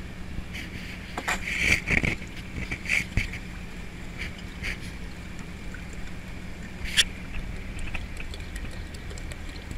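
A boat's engine running steadily under a faint steady high whine, while crab shells clatter and knock against each other and the metal sorting table as crabs are sorted by hand. The clatter is densest in the first few seconds and ends in one sharp click near the end.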